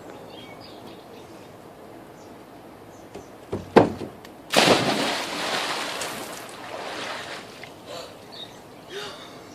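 A person jumping feet-first into an above-ground swimming pool: a couple of sharp knocks just before four seconds in, then a loud splash and churning water that fades over the next two to three seconds.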